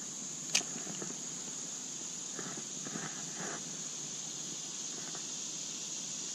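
Spinning reel being cranked to retrieve a small crankbait, in faint rhythmic ticking, after a single sharp click about half a second in. A steady high insect drone runs underneath.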